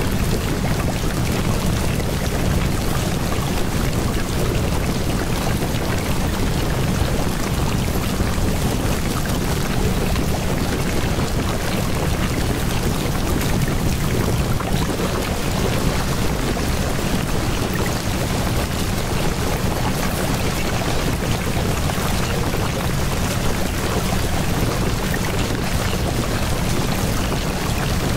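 Steady rain sound: an even rushing hiss of falling rain, unchanging in level, with a deep rumble underneath.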